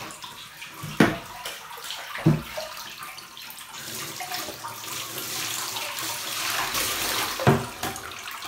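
Water poured from a plastic basin over a wet cat and splashing onto the bath surface as the shampoo is rinsed off. The pouring swells from about four seconds in, and there are three sharp splashes or knocks: one about a second in, one a little after two seconds, and one near the end.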